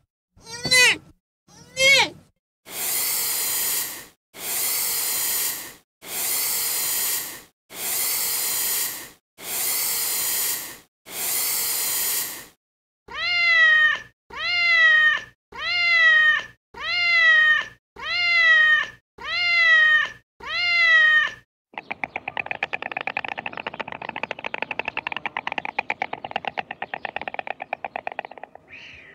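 Domestic cat meowing eight times, about once a second, each meow rising and falling in pitch. Before it come six long, even hisses, and after it a fast, dense rattling clatter.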